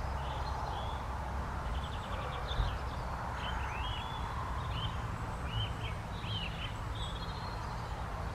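A small bird chirping in a string of short, arched calls over a steady low outdoor rumble, with one brief low thump about two and a half seconds in.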